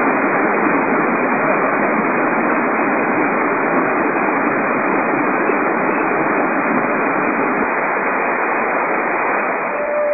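Steady rush of a small mountain stream and waterfall running over rocks.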